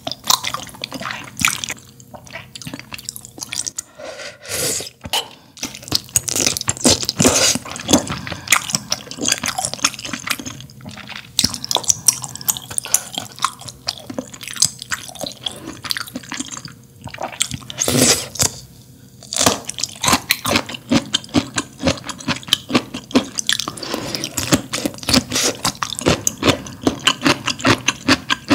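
Close-miked eating of malatang: a steady stream of wet, sticky chewing clicks and mouth sounds, with longer wet slurps now and then, the loudest about eighteen seconds in.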